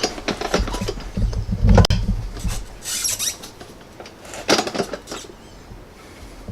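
Irregular knocks, clicks and short scrapes of parts and tools being handled during fabrication work, with a heavier thud about two seconds in.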